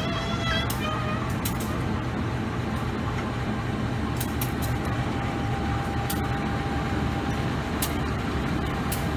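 Diesel-electric locomotive engine running steadily at close range: a low rumble with a faint steady whine above it and a few sharp clicks.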